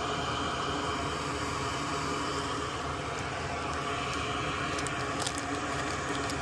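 Steady mechanical hum of workbench equipment, with a few faint sharp clicks from small tools on the circuit board about three to five seconds in.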